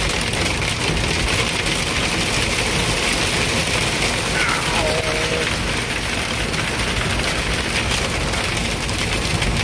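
Hail and heavy rain pelting the windshield and roof of a Kenworth W900 truck cab: a dense, steady clatter heard from inside the cab.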